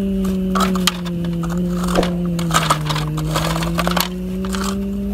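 A plastic toy excavator bucket scraping and digging through loose dirt and small stones, giving scattered crunching clicks. Under it runs a steady droning tone that slowly dips in pitch and rises again.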